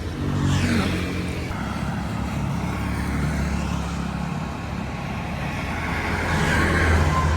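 Street traffic with a steady engine hum. One vehicle passes close about half a second in, and another near the end.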